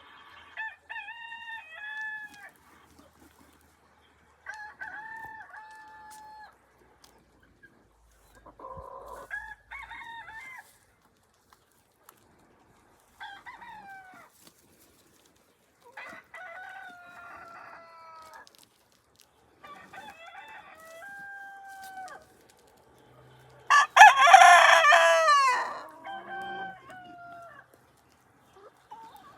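Rooster crowing sound effects played back: a series of about eight cock-a-doodle-doo crows a few seconds apart, one much louder than the rest late in the series.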